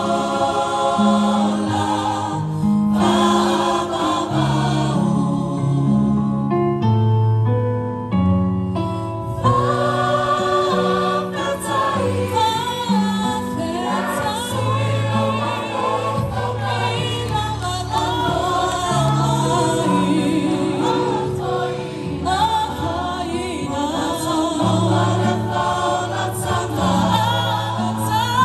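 Choir singing a Christmas carol in several parts, with long held low notes under wavering upper voices.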